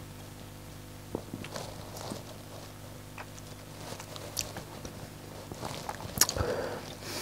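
Quiet mouth sounds of someone tasting a mouthful of beer: scattered small lip smacks and swallowing clicks, with a sharper knock about six seconds in as a glass bottle is picked up.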